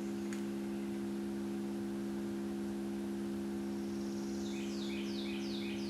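Steady electronic tone from a tone generator played through a Bluetooth speaker, set to 68 Hz and heard mainly as a hum of its overtones. About four seconds in, a quick series of high falling chirps from a wild animal joins it.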